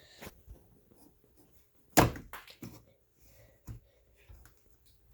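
Scattered light clicks and knocks, with one sharp, loud knock about two seconds in.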